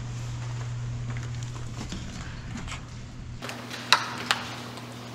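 A steady low hum that cuts off abruptly about three and a half seconds in, followed by two sharp clicks.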